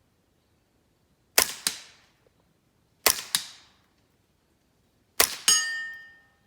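Three suppressed shots from a Smith & Wesson M&P 15-22 .22 LR rifle firing subsonic ammunition, about two seconds apart. Each shot is followed about a third of a second later by a second sharp crack, and after the last one a metallic ringing tone hangs on for about a second.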